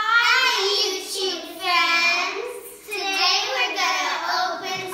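A group of children singing together in several phrases, with long held notes.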